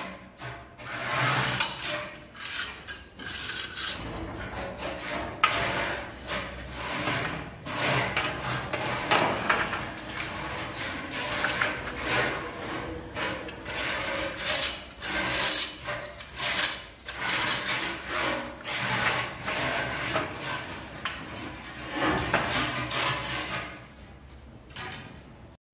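Irregular scraping and rubbing strokes: a hand tool scratches guide lines into the mortar bed along an aluminium level laid over ceramic floor tiles, with the level shifting against the tile. The strokes die down about a second before the end.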